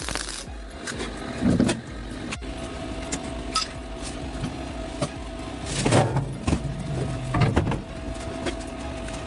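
Arc welding crackle that cuts off about half a second in. Then a steady faint hum with several knocks and thumps of the metal kart frame being handled, the loudest about one and a half and six seconds in.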